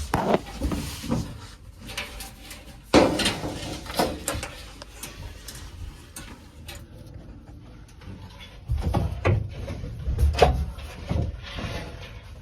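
Scattered knocks, clicks and scrapes of metal parts and tools being handled inside a gas furnace cabinet. About two thirds of the way in, heavier low thuds and rumbling handling noise set in.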